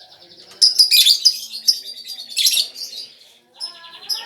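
Lovebird singing energetically: rapid high-pitched chirps and buzzy rattling trills, with a brief pause a little past three seconds in.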